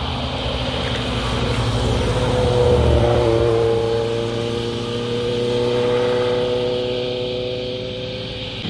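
Motorcycles riding past on the road, their engines loudest about three seconds in, where the pitch drops, and swelling again around six seconds.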